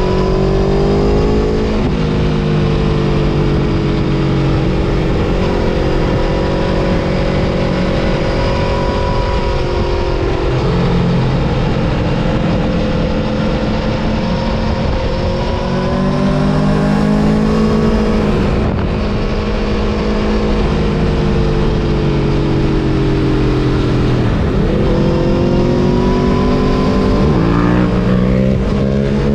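Aprilia Tuono V4 Factory's V4 engine running hard on track, its pitch gliding up and down and jumping sharply several times as it shifts gear and slows for corners.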